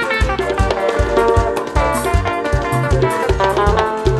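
Live highlife band playing an instrumental passage: electric bass guitar, drum kit and sustained keyboard chords, with no singing.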